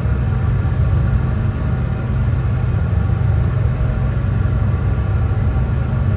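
Brown noise: a steady, even hiss weighted heavily toward the bass, with no changes or breaks.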